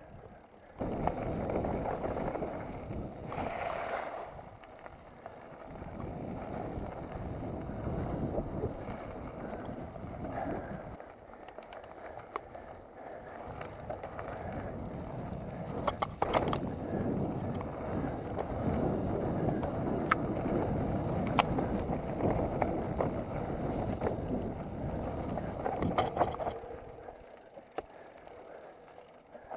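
Mountain bike rolling down a dirt singletrack: a steady rough rumble of tyres on the ground and air rushing past, with sharp clicking rattles from the bike over bumps around the middle. The rumble starts about a second in and quietens near the end.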